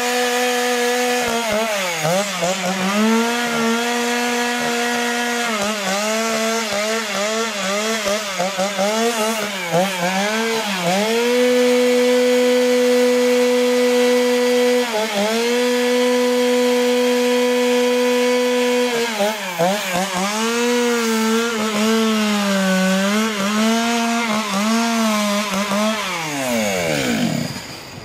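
Two-stroke carving chainsaw running at high revs while cutting into wood. The engine note repeatedly sags and recovers as the chain bites, holds steady for a few seconds at a time, and winds down near the end.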